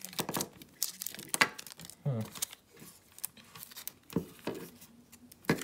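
Crinkling and tearing of protective plastic film and tape being peeled off a smart-speaker power adapter, with scattered sharp crackles.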